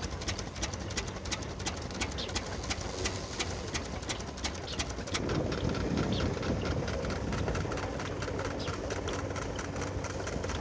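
Steam-driven threshing machine at work: a steady low hum under fast, continuous clattering and ticking. It grows louder and heavier about halfway through.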